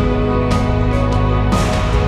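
Background music: sustained notes over a light steady beat.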